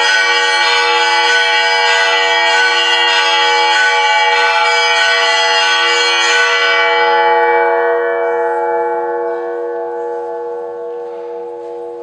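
Symphony orchestra with a set of tuned church bells playing a loud final chord, the bells struck over and over. About seven seconds in the strokes stop and the held chord rings on and slowly dies away.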